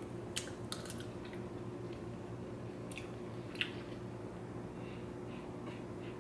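A person chewing a mouthful of dragon fruit: a few soft, wet mouth clicks and smacks, the clearest near the start and around three seconds in, over a faint steady hum.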